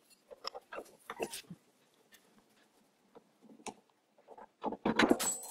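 Open-end spanner working the nut on a bench lathe's tool-post clamp, with scattered light metal clicks. Near the end comes a louder clatter of metal parts with a brief ring as the clamp is lifted off its stud.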